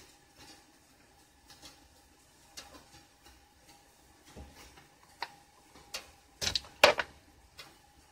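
A tin of black pepper shaken and tapped over a pot: scattered light clicks and taps about once a second, with two louder knocks near the end, over a faint steady hum.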